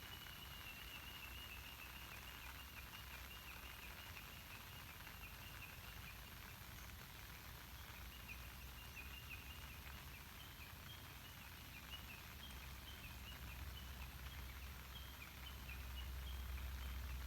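Light rain on a lake, a faint steady hiss, with a small animal's high-pitched chirping repeating throughout. A low rumble grows louder near the end.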